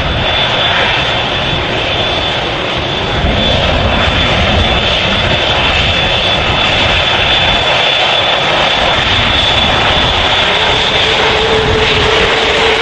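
Airbus A380's four jet engines running, a loud steady noise with a high whine over it; a lower steady tone joins near the end.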